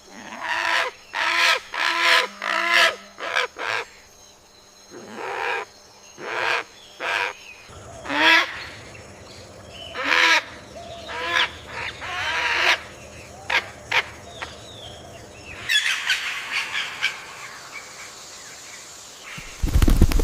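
Bird calls: a long run of short, harsh calls, each well under half a second, some bending in pitch, given singly and in quick pairs. From about three-quarters of the way through, a scratchier chatter takes over, and just before the end there is a brief loud low thump.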